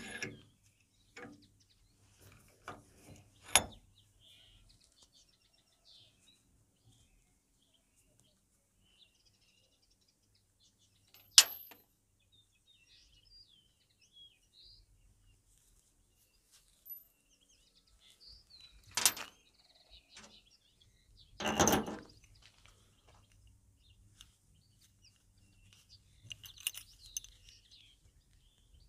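Scattered metal clicks and knocks from small steel parts and tools being handled at a bench vise: a sharp click about eleven seconds in and two louder, longer knocks around twenty seconds in. Faint bird chirps sound between them.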